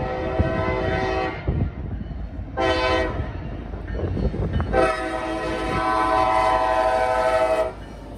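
Norfolk Southern freight locomotive's air horn sounding for a grade crossing. A long blast stops about a second in, a short blast comes near three seconds, and a long blast of about three seconds follows, which closes the long-long-short-long crossing signal as the train reaches the crossing.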